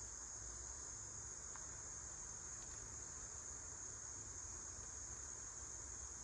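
Insects droning steadily outdoors: one constant high-pitched whine with no break, over a faint low rumble.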